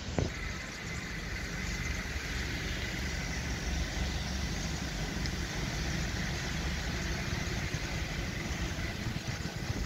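Small petrol engine of a portable rail track machine running steadily at idle, with a faint steady whine above it. A sharp knock comes right at the start.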